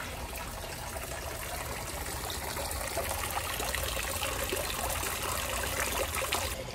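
Water trickling and splashing steadily into a round stone fountain basin, with many small droplet spatters. It stops abruptly near the end.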